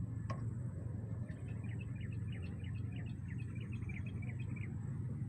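A small bird singing a quick run of short, falling chirps for a few seconds, over a steady low rumble of strong wind on the microphone; a single click sounds just after the start.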